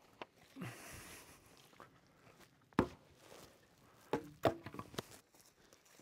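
Footsteps on a dry pine-forest floor while a long dry fallen branch is carried and dragged along, with a brief rustle under a second in. Sharp woody cracks ring out once near three seconds in, then several more between about four and five seconds in.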